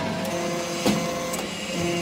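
Hydraulic metal-chip briquetting press running: a steady hum from the hydraulic pump and motor, with a sharp knock about a second in and a couple of fainter clicks as the pressed metal briquettes are pushed along the discharge chute.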